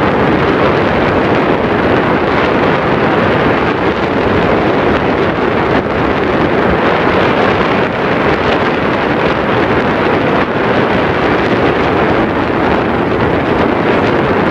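Steady, loud rushing of air over the microphone, without breaks or changes.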